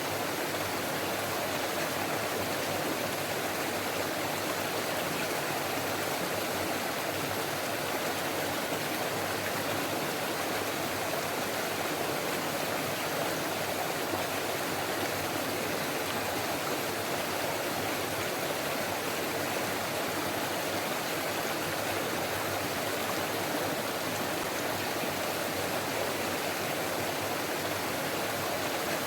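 Forest stream running over rocks: a steady babble of flowing water.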